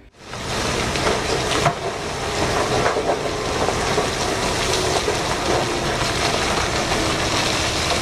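Load of rock sliding out of a giant mining haul truck's raised dump body: a steady rushing rumble of pouring rock, with a few knocks of falling stones in the first three seconds.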